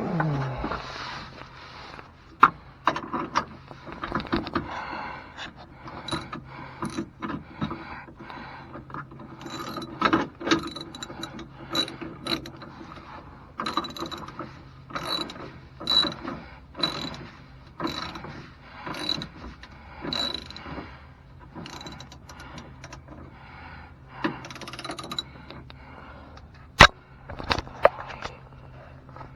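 Hand ratchet wrench clicking in repeated short strokes, about one a second, as bolts are run in on the step rail mounting brackets. There is a single sharper metal click near the end.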